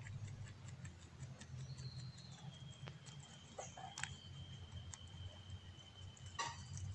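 Faint scattered clicks of a rabbit nibbling at leaves, over a low steady hum. A thin high steady tone starts about two seconds in and holds for several seconds.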